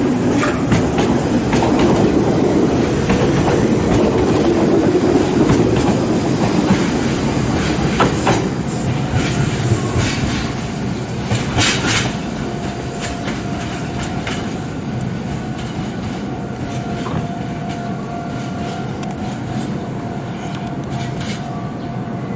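Meitetsu electric train running on the rails, with wheel rumble and sharp clacks as the wheels cross rail joints and points. It is louder for the first half. Then a quieter, steadier rumble follows.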